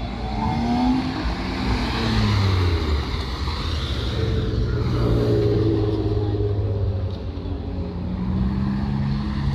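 Passenger cars driving past one after another close by, their engines pulling away with rising pitch, along with tyre noise on asphalt.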